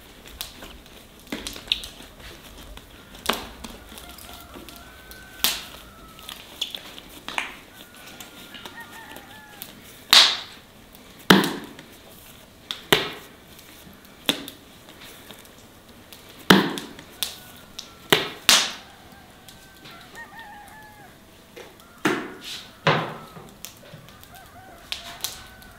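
Irregular sharp knocks and thumps of bread dough being worked on a table with a rolling pin and hands, with hens clucking faintly in the background.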